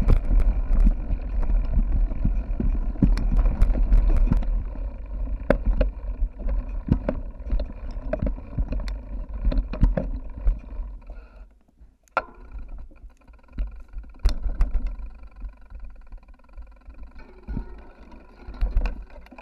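Mountain bike ridden over rough ground, picked up by a bike-mounted GoPro: a low rumble of wind and vibration with frequent knocks and rattles, quieter and sparser from about twelve seconds in.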